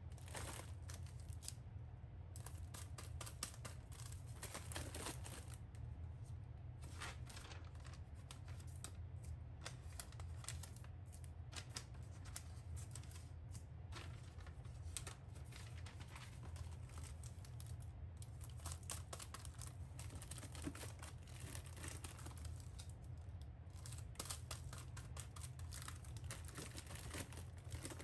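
Plastic bags and a paper sheet being handled, rustling and crinkling irregularly throughout, over a faint steady low hum.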